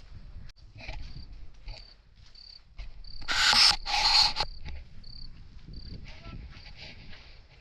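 Insects chirping in short, repeated high-pitched pulses, with two loud bursts of rushing noise a little past the middle.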